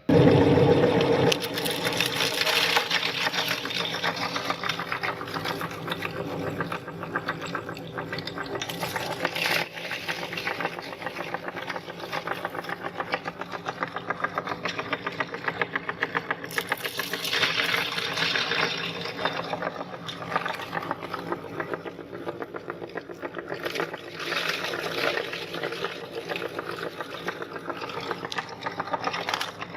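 Electric meat grinder switched on and running, its motor humming steadily under a dense rapid crackle as it grinds hard orange candy, swelling louder several times.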